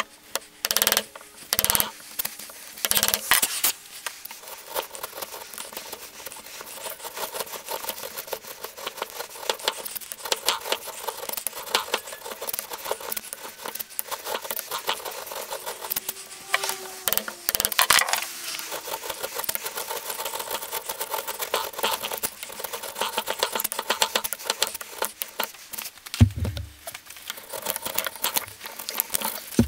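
A hand chisel paring and chopping thin mahogany strips held in a metal bench vise: a long run of short scraping cuts and small clicks, with several sharper knocks in the first few seconds and a low thump near the end.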